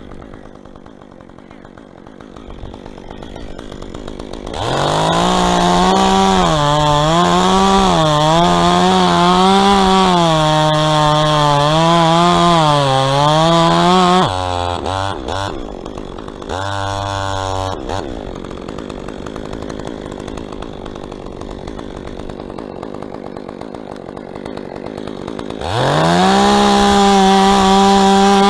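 Two-stroke chainsaw revved to full throttle about four seconds in, its pitch wavering as it labours through a cut, then dropping back to idle about ten seconds later. After a quieter stretch it revs up high again near the end.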